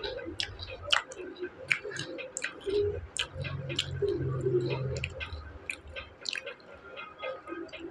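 Close-miked chewing of crisp fried onion pakoda: many short crunchy clicks and wet mouth sounds, with a low hum for about two seconds in the middle.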